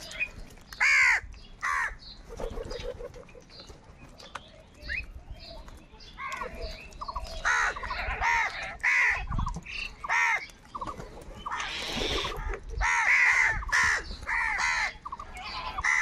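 A flock of house crows cawing: harsh, overlapping caws, a few at first, then coming thick and fast from about six seconds in.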